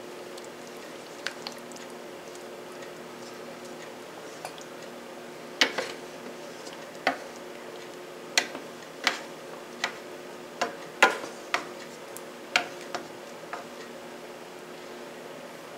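Wooden spatula knocking and scraping against a stainless steel skillet while chicken pieces are shifted in a creamy sauce: scattered sharp clicks, most of them from about five seconds in until near the end, over a steady low hum.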